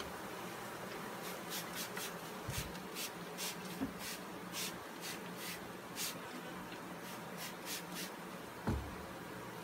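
Honeybee swarm humming steadily, with a run of brief dry scratching sounds over the hum and two soft low thumps.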